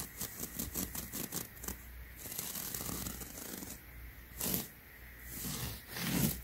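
Scratching: a quick run of short scratches over the first two seconds, then a longer rustle and a few scattered scratches, the loudest about four and a half seconds in.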